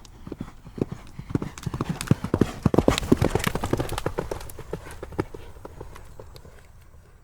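A group of horses galloping past, hooves pounding on the ground: the hoofbeats grow louder to a peak about three seconds in, then fade away as the horses pass.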